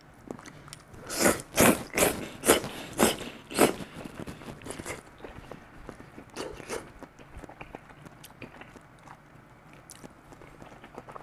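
A person slurping udon noodles: about six loud sucking slurps in quick succession starting about a second in, then quieter chewing with a few softer slurps.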